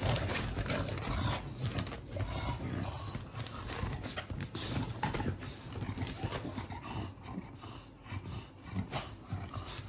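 American Bully dog breathing heavily and snuffling at close range, with scattered clicks and rustles as it moves about.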